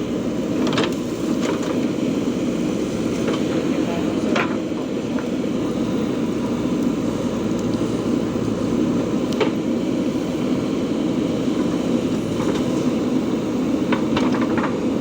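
JCB 3DX backhoe loader's diesel engine running steadily under work, with a few sharp knocks scattered through it.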